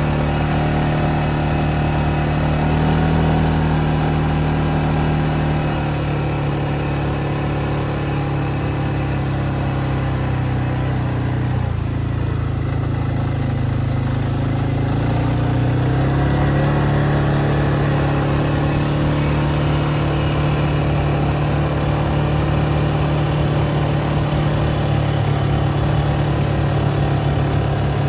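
Vehicle engine running at a steady speed while under way, easing off about twelve seconds in and picking up again a few seconds later.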